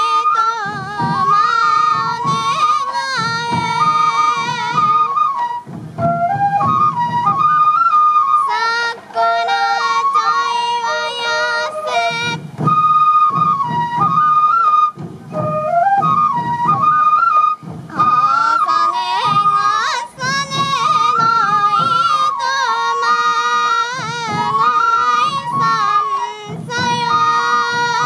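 Traditional sansa dance music: a Japanese bamboo flute (fue) playing a wavering, stepped melody over the pulsing beat of the dancers' hip-slung taiko drums.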